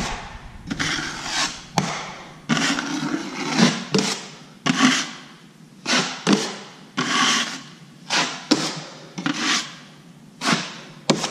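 Steel drywall taping knife scraping across wet joint compound on drywall in quick repeated strokes, about one every half second to a second. Each stroke starts sharply and fades out as the first coat is smoothed and its edges feathered under pressure.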